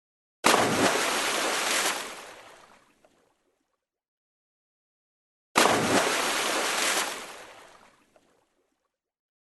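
Water splash sound effect played twice, the same clip each time. Each one starts suddenly with a splash, churns steadily for about a second and a half, then fades away. There is dead silence between the two.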